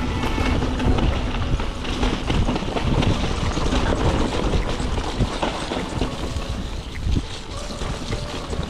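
Wind buffeting an action camera's microphone over the rumble and rattling knocks of a mountain bike riding down a rough trail.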